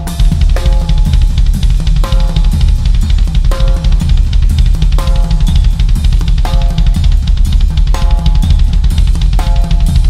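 Acoustic drum kit with Paiste cymbals played hard and fast: a dense, unbroken bass drum pattern under steady cymbal wash, with a ringing drum hit landing about every second and a half.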